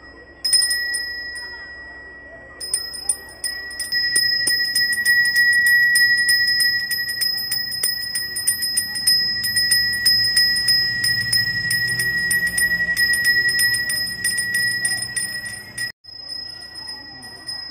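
A Balinese priest's brass hand bell (genta) rung continuously: the clapper strikes rapidly over a steady ringing tone. It starts about half a second in, is loudest through the middle, and drops quieter after a brief break near the end while still ringing.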